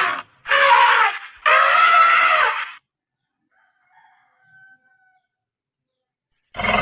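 Toy elephant's built-in sound effect playing loud, harsh animal calls: three calls about a second each, then a pause. A louder, steadier call starts near the end.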